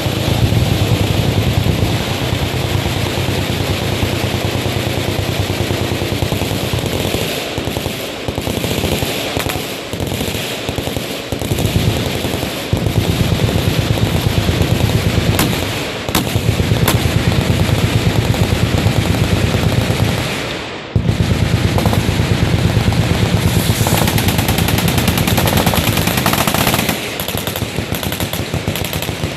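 Sustained automatic machine-gun fire, a dense rapid rattle of shots. It briefly falls away about two-thirds of the way through, then resumes at full loudness.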